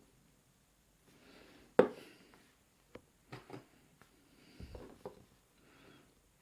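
Metal clicks, knocks and scraping from handling a disassembled brass-and-steel padlock and its parts, with one sharp click about two seconds in as the loudest, and a cluster of softer knocks a little before five seconds.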